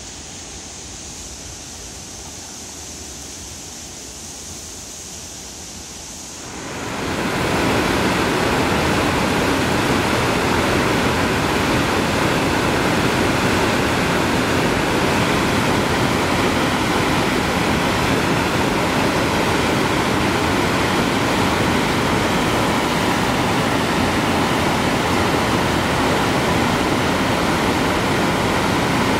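Steady rush of the River Clyde in spate. It starts as a quieter hiss of rapids, then at about six and a half seconds it jumps much louder to the full, even rush of a waterfall pouring over a rock ledge.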